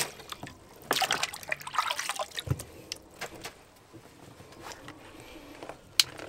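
Water splashing and trickling as freshly caught trout are washed by hand over a bucket of water, most busily in the first couple of seconds. A dull bump comes about two and a half seconds in, and a sharp click near the end.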